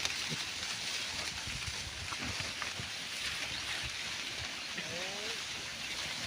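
Steady wind-like outdoor noise with faint, scattered low sounds, and one faint short call that rises and falls about five seconds in.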